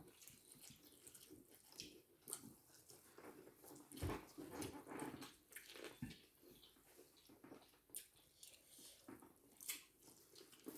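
Faint eating sounds: quiet chewing with scattered soft clicks, a little louder about four seconds in.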